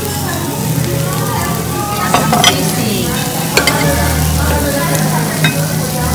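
Knife and fork cutting through the crackly fried skin of crispy pata, with several sharp clicks of metal cutlery against a ceramic plate, over a steady crackling hiss and a low hum.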